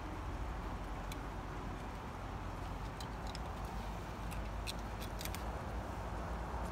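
Small sharp clicks, scattered and mostly bunched in the second half, from hands picking blueberries off the bush into plastic colanders, over a steady low rumble.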